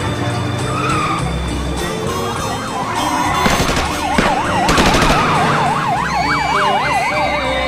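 Emergency-vehicle siren in fast yelp mode, its pitch sweeping up and down about three times a second, starting about four seconds in. Just before and as it starts, several sharp cracks.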